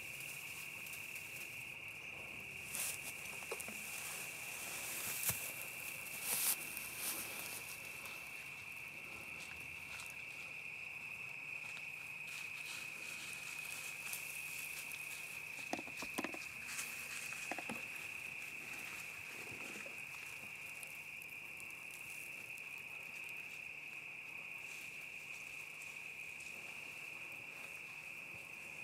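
Steady high-pitched insect chorus droning without a break, with a few soft rustles and clicks a few seconds in and again about midway.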